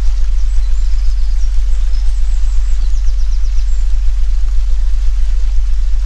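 A loud, steady, very low healing-frequency tone hums under a forest ambience recording. The ambience has an even hiss, and small birds chirp and trill high up through the first half.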